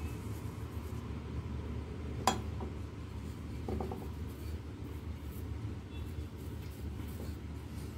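A single sharp clink about two seconds in and a short rattle a second later, then a wooden rolling pin rolling dough on a marble board, over a steady low hum.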